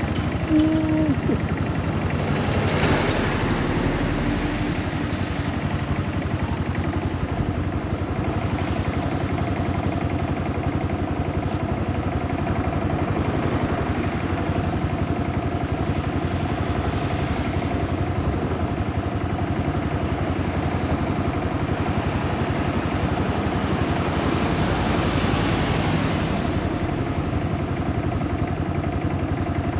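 Yamaha SRX400's air-cooled single-cylinder engine running while the bike is ridden, with road and wind noise swelling and easing a few times. The owner takes the bike's abnormal noises for a probable blown transmission and slipping clutch. A brief pitched tone sounds about half a second in.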